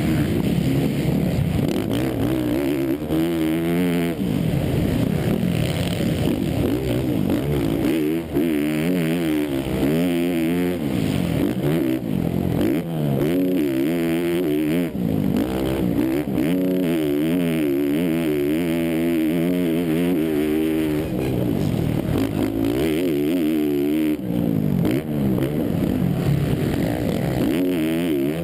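Motocross bike's engine revving hard at race pace, its pitch rising and falling over and over as the rider goes on and off the throttle and shifts through corners and straights.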